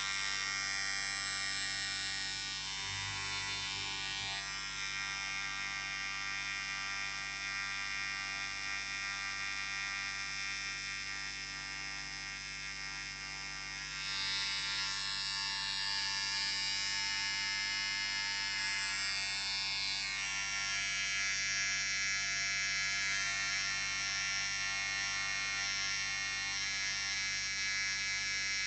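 Electric beard trimmer running steadily: a continuous buzzing hum. Its brightness shifts a few times, about four seconds in, around the middle and again a little later.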